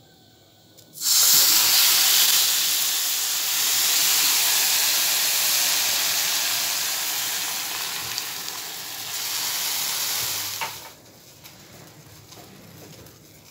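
Sugar and a little water hissing and sizzling in a hot pan. The hiss starts suddenly, slowly eases off, and stops abruptly a couple of seconds before the end.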